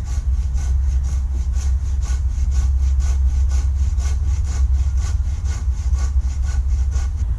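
Hand saw cutting through green wood in quick, even strokes, about four a second, over a steady low rumble.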